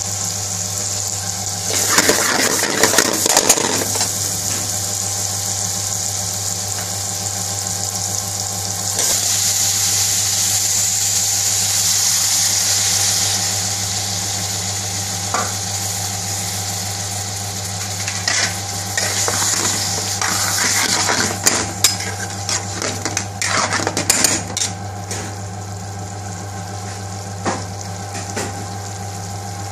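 Curry sizzling and frying in a metal pan, with a metal spoon scraping and knocking against the pan in bursts, about two seconds in and again in a longer spell from about eighteen to twenty-five seconds in. A steady low hum runs underneath.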